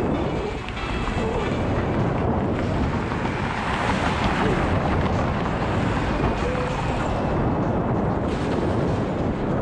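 Steady wind noise buffeting the camera microphone, mixed with the rumble of an electric skateboard's wheels rolling over pavement.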